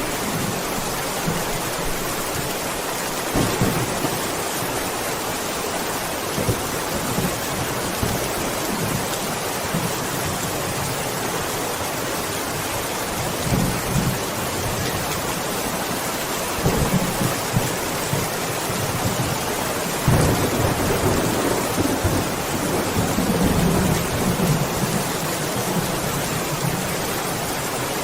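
Steady rain with rolls of thunder: brief low rumbles a few seconds in and around the middle, and a longer, louder rumble from about 20 to 25 seconds in.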